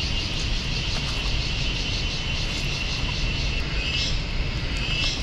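Outdoor ambience: a steady low rumble under a high, pulsing buzz of insects.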